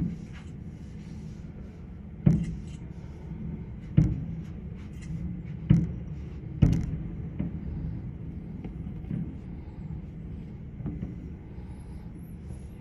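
Fireworks bursting: five loud booms, each followed by a rolling echo, about one to two seconds apart, then a few fainter pops, over a steady low rumble.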